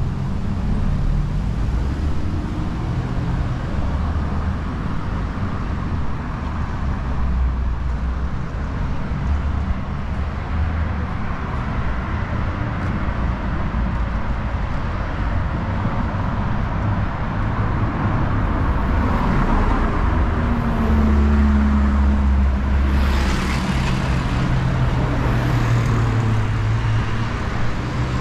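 Road traffic on a city avenue: steady engine rumble and tyre noise from passing cars and heavier vehicles. A louder vehicle rumbles past about twenty seconds in, with a brief hiss near its peak.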